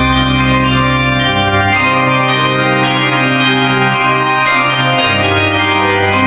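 Organ music: held chords over a bass line that moves to a new note a few times.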